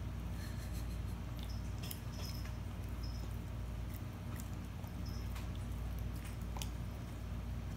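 Bloodhound puppy chewing and mouthing a piece of bread held between its paws: scattered short, irregular wet clicks and crunches of jaw and tongue, over a low steady background hum.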